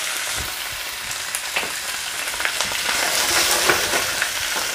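Raw quail halves frying in hot oil in a nonstick frying pan: a steady sizzling hiss with many scattered small pops and crackles of spattering oil.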